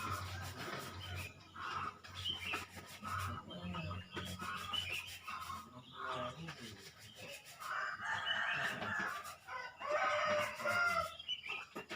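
Domestic roosters crowing, the loudest and longest calls a little after the middle and near the end, among chirping birds, with a low hum in the first few seconds.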